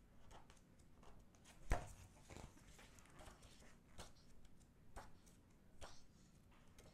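Pages of a glossy album photobook being turned by gloved hands: several soft paper flips and rustles about a second apart, the loudest just under two seconds in.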